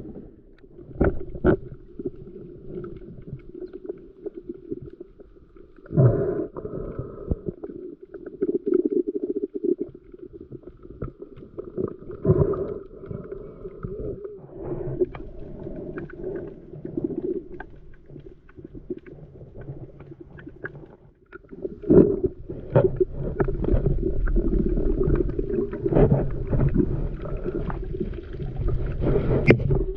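Muffled water sloshing and gurgling, with scattered knocks and clicks. It grows louder and heavier about three-quarters of the way through.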